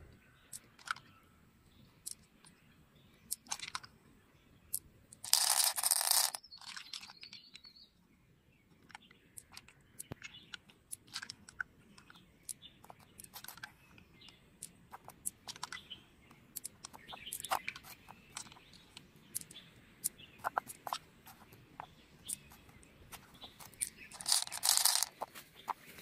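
Fingers picking through the soft flesh of an opened freshwater pearl mussel, with scattered small clicks and crackles. Twice, about five seconds in and again near the end, a handful of pearls is tipped from the palm onto the pearls in the shell with a brief clattering rattle.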